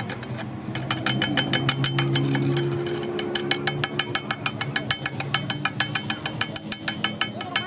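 Rapid hammering on the steel of a truck front axle, sharp metallic strikes about six a second. A low steady machine hum runs under it in the first few seconds.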